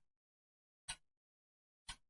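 Clock ticking steadily, one short, sharp tick each second with silence between ticks.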